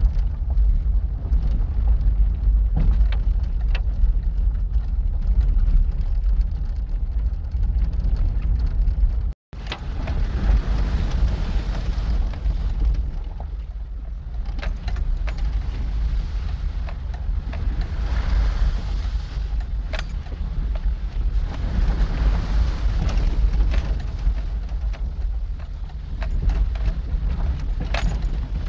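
Engine and tire noise of a Chevrolet vehicle heard from inside the cab while it drives over a rough dirt track: a steady low rumble with scattered light rattles and clicks. The sound cuts out for a moment about nine seconds in.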